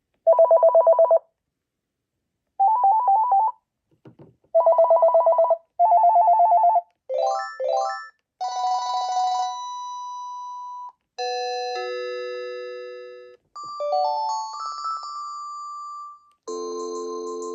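A Panasonic cordless phone handset playing its built-in ringtones one after another: first four short electronic warbling trills, then quick rising beep patterns and simple electronic melodies, each separated by a short pause.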